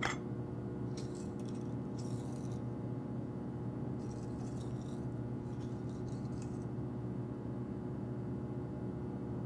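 A plate is set down on a glass tabletop with a sharp click at the start. Faint short rustles follow in two pairs as idli is eaten by hand, over a steady low hum.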